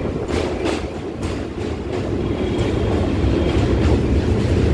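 Passenger train running on the rails, a steady rumble with a few clacks of the wheels over rail joints in the first second or two, growing a little louder toward the end.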